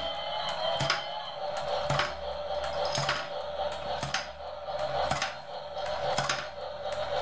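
Battery-powered domino train toy running and dropping plastic dominoes: a sharp plastic clack about once a second over the toy's thin electronic tune.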